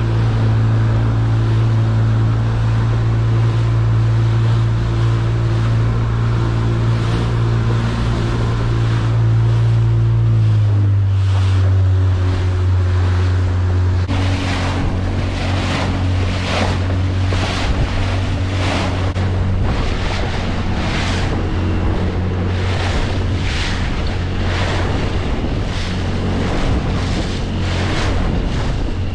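Small boat's outboard motor running steadily under way, its hum dropping slightly in pitch about ten seconds in, with rushing wake water and wind on the microphone. From about halfway, waves and spray splash against the hull roughly once a second.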